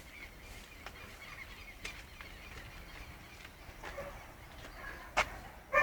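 Dogs in a makeshift pound yelping faintly now and then, with a few light knocks, and a louder yelp starting right at the end.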